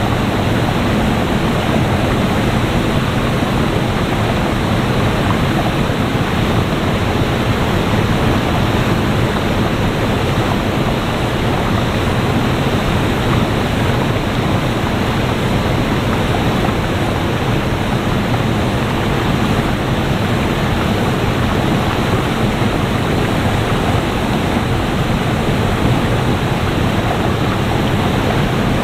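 Waterfall in flood: a steady, unbroken rush of floodwater pouring over the falls.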